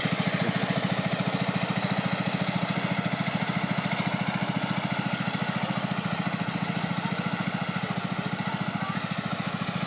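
Ferrari-branded ride-on lawn tractor's engine running steadily, an even fast pulse, as the tractor drives across grass.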